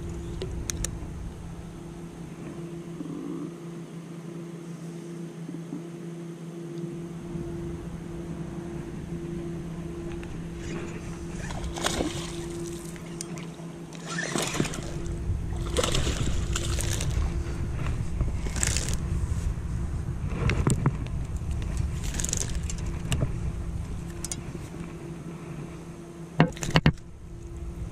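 A small hooked fish splashes and thrashes at the surface while being fought in on a rod, heard as sloshing water and scattered crackles over a steady low hum from about halfway through. Two sharp knocks come near the end as it is landed.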